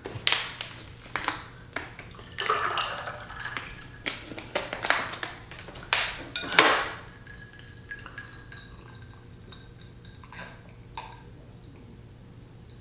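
Cutlery clinking and scraping against a plate or bowl, a busy run of clicks and scrapes for about seven seconds, then a couple of lighter clicks near the end.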